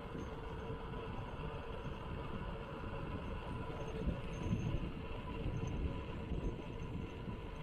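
Steady rumble of a 26-inch mountain bike rolling on a concrete road: tyre and frame vibration, with a couple of louder bumps about four seconds in.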